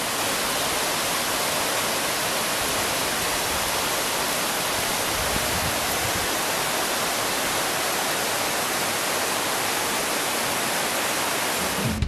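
Low waterfall pouring over stepped rock ledges into a pool: a steady, even rush of water that does not change in loudness.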